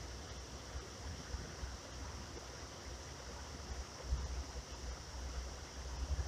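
Wind buffeting the microphone in irregular low rumbling gusts, stronger about four seconds in and near the end, over a steady outdoor hiss.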